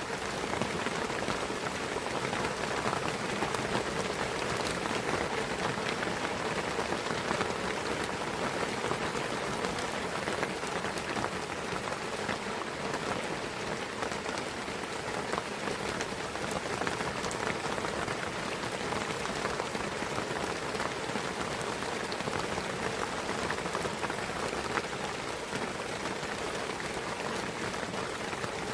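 Steady rain falling in a pine forest, an even hiss of drops on foliage and ground with many small individual drop ticks.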